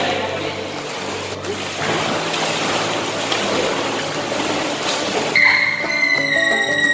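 Water splashing and churning in an indoor swimming pool, with faint background music. About five seconds in, a high-pitched squeal is held for about a second and a half.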